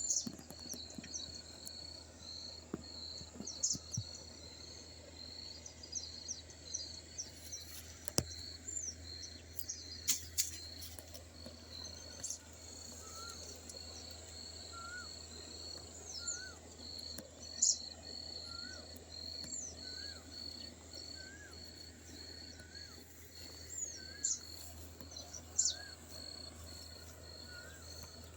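Insects trilling steadily with a fast even pulse, with scattered bird chirps over it. From about halfway a short hooked call repeats roughly once a second.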